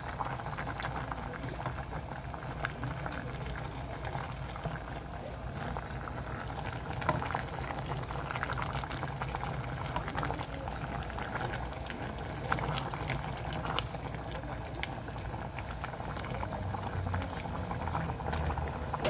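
Beef and seaweed soup boiling in a stainless steel pot with steady bubbling, stirred with a slotted spatula that gives scattered light clicks against the pot.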